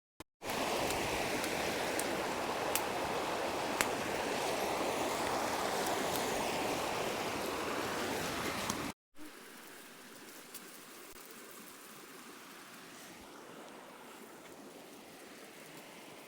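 River water flowing and rushing over rocks, heard loud and close for about eight seconds, then cutting to a quieter, more distant stretch of the same flowing water.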